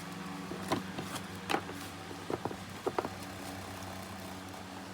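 Hands handling a tablet's retail box while trying to open it, making a scatter of short clicks and taps between about one and three seconds in, over a steady low hum.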